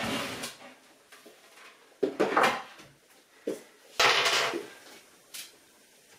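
A white laminated shelf scraping as it slides out of a kitchen base cabinet, then a few sharp knocks, short scrapes and small clicks of hands and board against the cabinet's panels.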